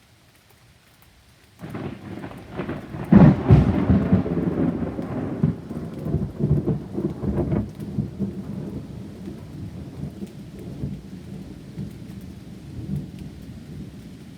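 A thunderclap: it breaks suddenly about a second and a half in, cracks loudest about three seconds in, then rolls on as a rumble that slowly fades.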